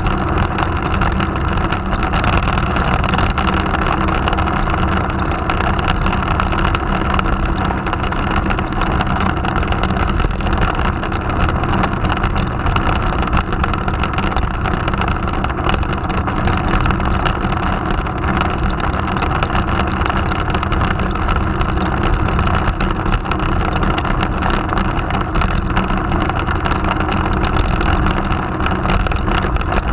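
Motorcycle engine running steadily at cruising speed, with wind rushing past the microphone.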